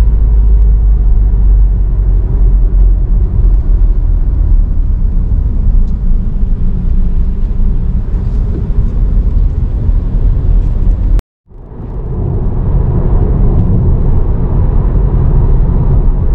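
Steady low rumble of a car's road and engine noise heard from inside the cabin while driving on a highway. About eleven seconds in it cuts off suddenly to silence, then fades back in over about a second.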